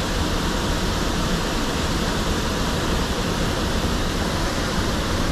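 Steady rushing of flowing water, an even unbroken hiss that holds at one level throughout.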